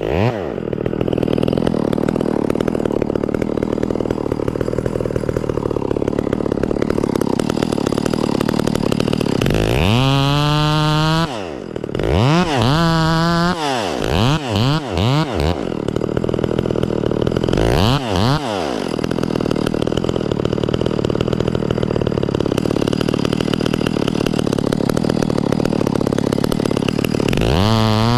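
Echo 670 two-stroke chainsaw running hard in a cut, with its engine speed dropping and climbing back several times, around the middle and again near the end.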